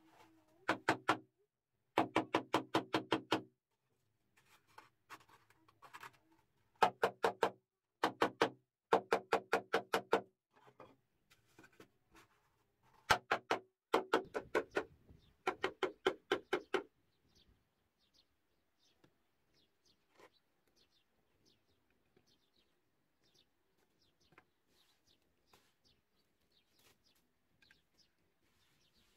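Hollow bamboo tubes knocked with a piece of wood in quick runs of several strokes, each stroke ringing with the same hollow pitch. The knocking stops a little past halfway, leaving faint bird chirps.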